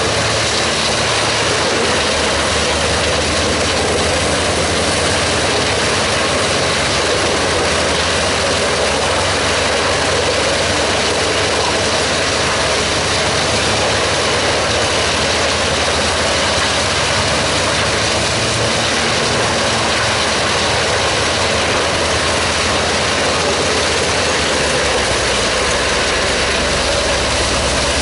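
Truck-mounted Giant wood chipper running under load, chipping logs fed in by its crane and blowing the chips out of its discharge spout: a loud, steady, unbroken mechanical din.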